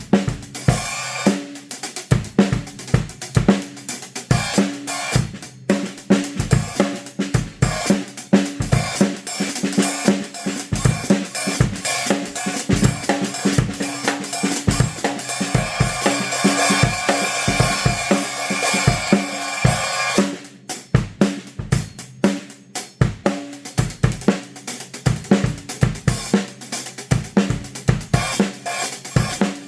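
Drum kit played in a steady groove with snare, bass drum and Zildjian A City Pack cymbals: hi-hat, 14-inch A Fast Crash and 18-inch A Uptown Ride. A dense, sustained cymbal wash builds through the middle and cuts off suddenly about two-thirds of the way in, leaving sparser drum and cymbal hits.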